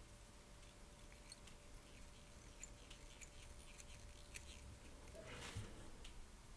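Near silence, broken by faint light ticks and a soft rustle about five seconds in from fingers handling tying thread and a small wire tool at the fly-tying vice.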